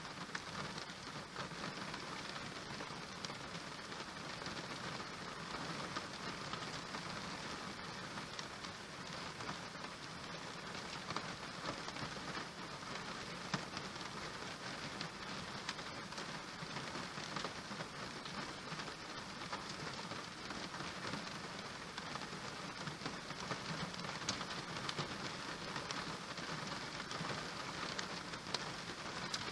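Steady rain falling on a surface, an even hiss with many fine drop ticks throughout.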